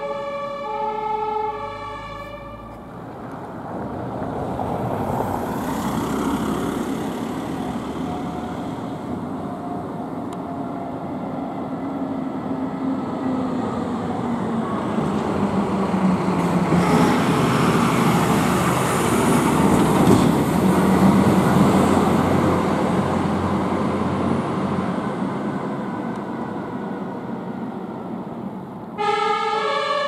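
A fire engine on an emergency run. Its two-tone siren (Martinshorn) alternates for the first couple of seconds and again in the last second. In between, the truck's engine and tyres come closer and pass, loudest about two-thirds of the way through, with a slowly falling engine tone.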